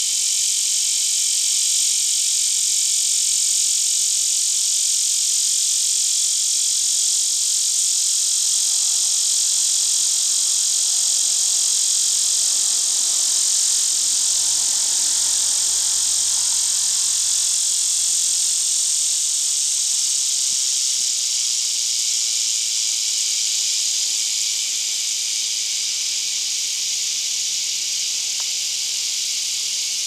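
Male lyric cicada (Neotibicen lyricen) singing a mating call, a loud steady buzz, over a constant chorus of hundreds of cicadas (scissor-grinder cicadas, other lyric cicadas and Linne's cicadas). The high buzz eases slightly over the last few seconds.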